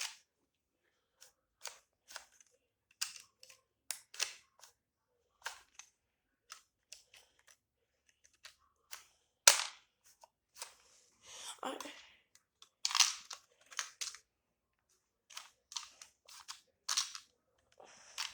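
Irregular plastic clicks and snaps of a toy shell-ejecting Glock pistol being worked, its slide racked and the gun fired. The loudest snap comes about nine and a half seconds in, with more clustered a few seconds later.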